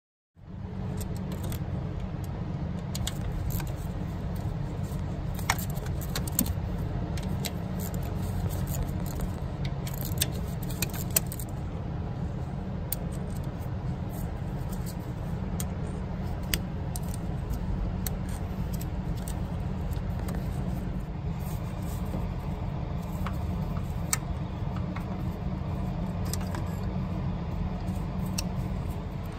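Scattered light metallic clinks and taps of hand tools and small steel bolts against the VTEC solenoid assembly as it is unbolted and pulled off, densest in the first dozen seconds, over a steady low rumble.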